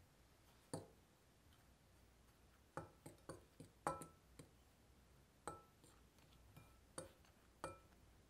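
Spoon knocking and clinking against a glass mixing bowl while stirring dry flour, sugar and salt together: about ten light knocks, a few with a short glassy ring, most bunched between about three and four seconds in.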